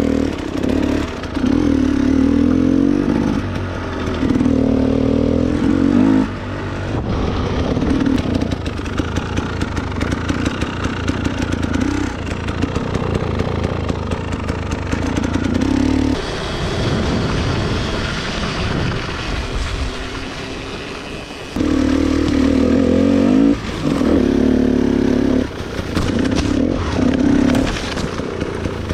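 Dirt bike engine being ridden hard, revving up and down in repeated bursts of throttle, with quieter stretches between.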